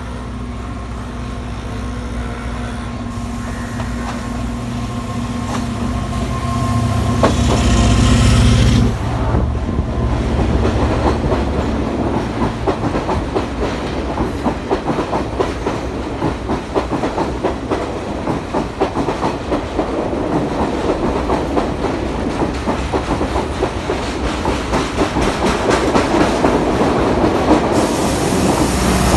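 Sri Lanka Railways S11 diesel multiple unit approaching and passing close beneath. Its engine hum builds to a peak about eight seconds in, then the carriages roll by with a rapid, continuous clickety-clack of wheels over the rail joints.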